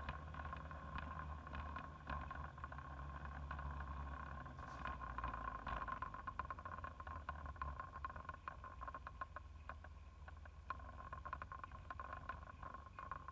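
Vehicle road noise heard through an onboard camera while moving along a street: a low rumble with a steady high whine and many light ticks.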